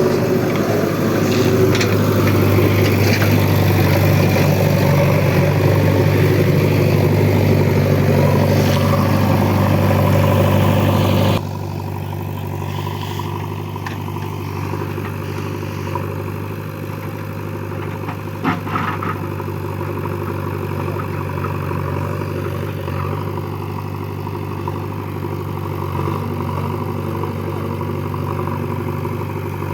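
Heavy diesel engine running steadily and loud, then suddenly quieter about eleven seconds in. A single sharp clank comes a little past the middle.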